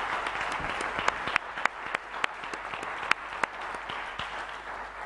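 Audience applauding in a lecture hall, the clapping fading away toward the end.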